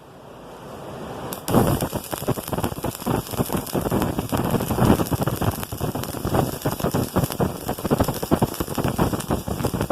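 Stick welding with a 2.5 mm welding rod on thick steel plate: the arc crackles and sizzles steadily. A softer hiss for about the first second and a half, then the dense crackle sets in.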